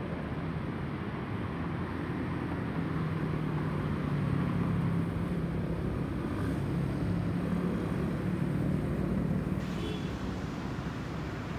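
Airbus A320-216's CFM56 turbofan engines heard as a low, steady rumble from an airliner passing high overhead, swelling a little in the middle and easing slightly near the end.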